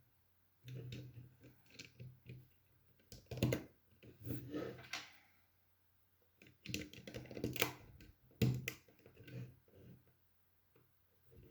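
Plastic Lego pieces being handled and clicked together: irregular flurries of small clicks and rattles, with short pauses between them.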